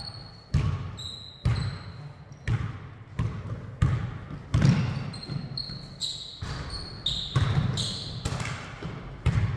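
Basketball dribbled on a hardwood gym floor, bouncing one to two times a second with echo from the hall. Short high squeaks of basketball shoes on the floor come between the bounces.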